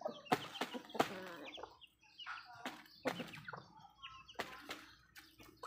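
Chickens clucking in short calls while feeding, with sharp taps of beaks pecking at scattered grain on concrete.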